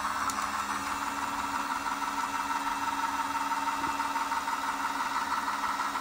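Daiso miniature toy washing machine's small battery motor running steadily, spinning its water-filled tub with a steady, even hum.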